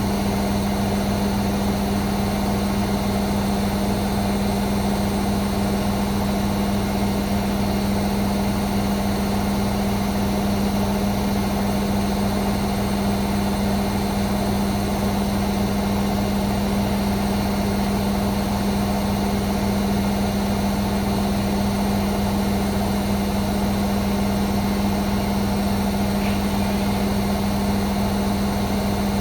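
Hoover Six Sportswear 1300 washing machine on a fast spin, drum turning at high speed with a steady hum and one strong unchanging tone.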